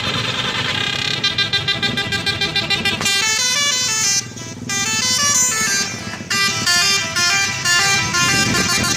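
Indonesian 'telolet' multi-tone bus horn playing a tune. It opens with a fast pulsing trill, then runs through short notes stepping up and down in pitch, with a brief break about four seconds in.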